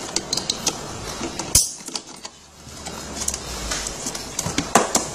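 Plastic wire-harness plug connectors of a kids' ride-on truck's motor wiring being handled and pushed together, with the wires rustling: a run of sharp plastic clicks and small rattles. The loudest click comes about a second and a half in, and a few more come near the end.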